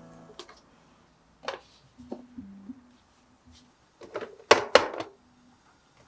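A series of short knocks and clunks of household objects being handled and set down, with a louder cluster of clatters about four to five seconds in.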